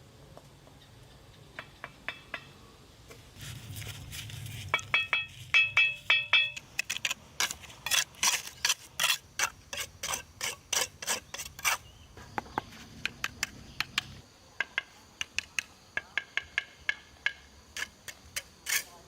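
A series of sharp strikes at about two to three a second. Some of the early strikes leave a brief metallic ring, and the strikes grow lighter after about fourteen seconds.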